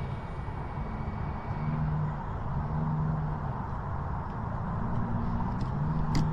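A vehicle running, heard as a low steady hum that shifts slightly in pitch a few times, over a haze of outdoor noise.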